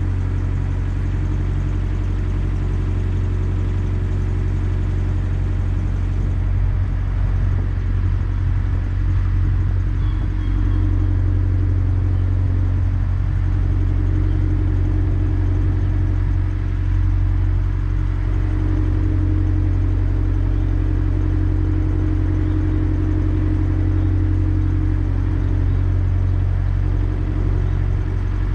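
Narrowboat's diesel engine running steadily at cruising speed: a constant low drone with no change in pace.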